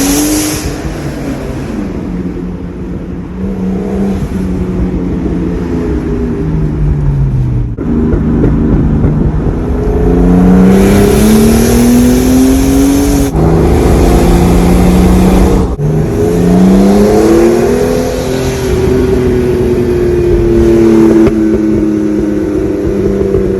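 Turbocharged Mercedes-Benz M103 straight-six in a W124 300CE accelerating through the gears. The engine note climbs and falls back at each gear change, with three changes in quick succession toward the middle, and a hiss rides on the loudest pulls.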